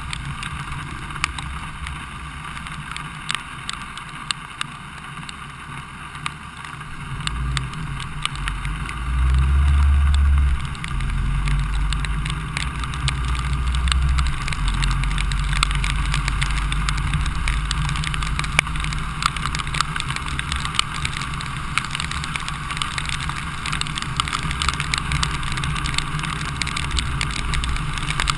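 A vehicle travelling along a rain-soaked street: tyres hissing on the wet road, with frequent sharp ticks of raindrops striking close by. A low rumble builds about seven seconds in and is loudest around ten seconds.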